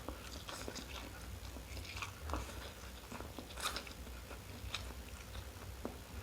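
Close-miked chewing of fried instant noodles: irregular wet mouth clicks and smacks as the mouthful is chewed.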